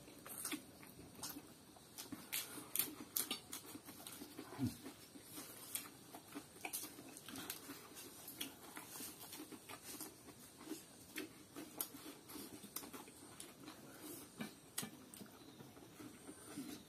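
Two people eating spicy Korean instant noodles with lettuce: faint, irregular slurping and chewing with small clicks of fork and chopsticks.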